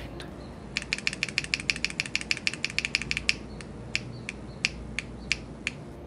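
Key presses on a heavy brass keycap fitted to a Topre-style HHKB switch with an MX slider: a fast run of clicks, about ten a second, for a couple of seconds, then slower, scattered presses.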